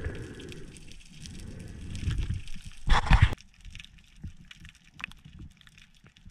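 Underwater sound through a diving action camera: low water rumble and movement, a loud short rush of water about three seconds in, then quieter with scattered crackling clicks.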